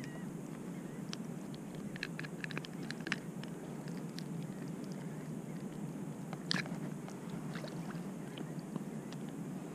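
A speckled trout being unhooked by hand: small clicks and taps of the jig head and fish, a cluster about two to three seconds in and one more around two-thirds through, over a steady low rush of wind and lapping water.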